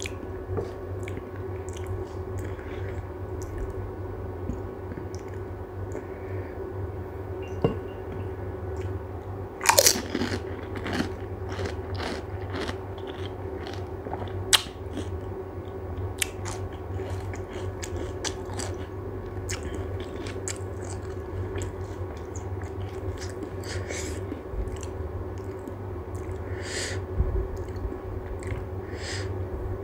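Close-up eating of pani puri (golgappas): crisp puri shells crunching as they are bitten, with chewing between bites. The loudest crunch comes about ten seconds in, over a steady low hum.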